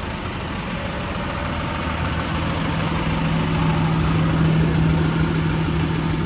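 Caterpillar diesel engine of a 2009 Blue Bird school bus idling steadily, growing louder, with a steady low hum coming in about two seconds in.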